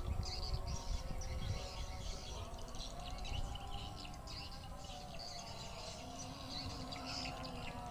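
Small birds chirping again and again, over a steady low rumble.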